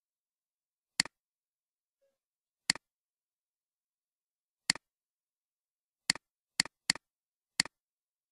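Computer mouse button clicked seven times, each a sharp two-part click of press and release, spaced unevenly, with three quick clicks close together near the end.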